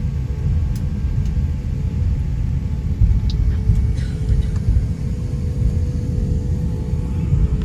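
Steady low rumble inside an Airbus A350-900 airliner's cabin while the jet taxis on the ground with its engines running.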